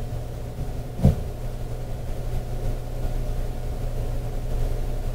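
Steady low hum of a 681 series electric train's onboard equipment heard inside the car while it stands at the platform, not yet moving. A single thump about a second in.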